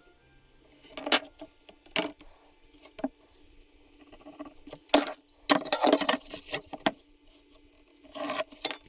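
Irregular light knocks, clicks and scrapes of wooden pallet boards being handled and set down, with a faint steady hum underneath.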